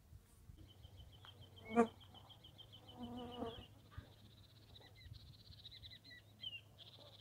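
Small wild creatures calling: a fast, evenly pulsed high trill for about three seconds, then higher chirping trills. A short, loud call about two seconds in and a fainter, longer call a second later, over a faint low hum.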